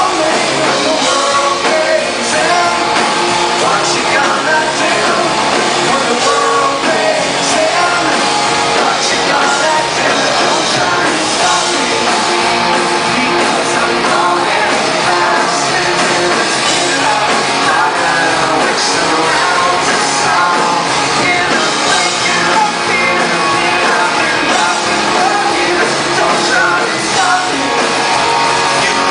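Live rock band playing at full volume, with distorted electric guitars, drums and singing, heard loud and saturated as a concert recording from the audience.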